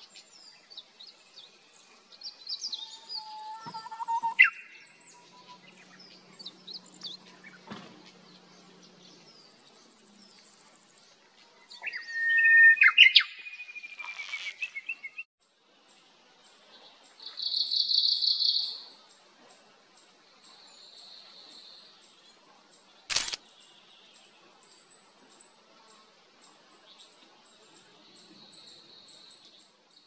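Japanese bush warbler singing twice: a low whistled note leaping into a quick higher phrase, with thin high chirps around it. Later come high buzzy trills and a faint steady high ticking, plus a single sharp click.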